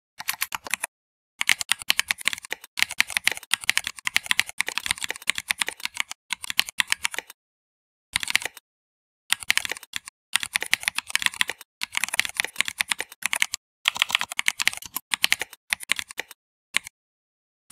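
Typing on a computer keyboard: fast runs of key clicks broken by short pauses.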